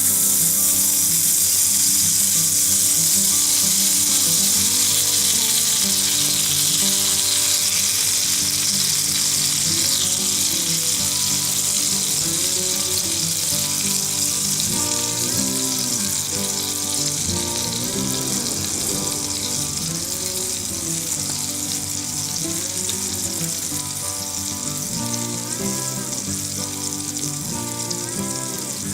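Sea bass frying in a cast-iron skillet: a loud, steady sizzle that eases slightly toward the end.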